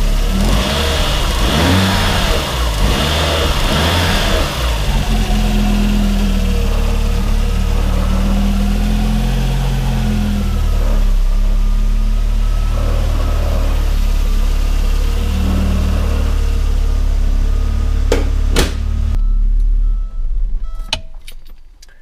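Audi 5000 CS Quattro turbocharged five-cylinder engine running, its revs rising and falling for the first few seconds, then idling steadily. It runs smoothly on a freshly fitted timing belt, with no sign of a vacuum leak. The engine sound cuts off abruptly about three seconds before the end, just after a click.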